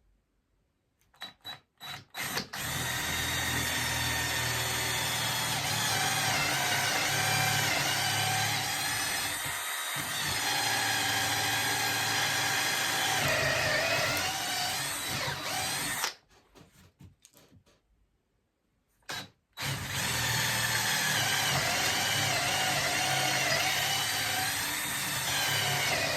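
Power drill with a 5/16-inch bit boring two holes through clamped wooden picket fence boards: a few brief starts, a steady run of about thirteen seconds, a pause, then a second steady run.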